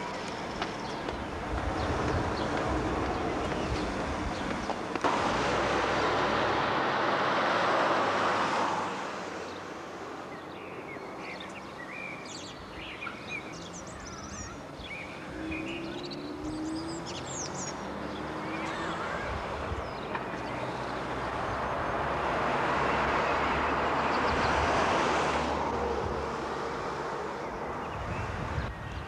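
Outdoor road ambience: two vehicles pass, each a broad rush that swells and fades, and small birds chirp in the quieter stretch between them.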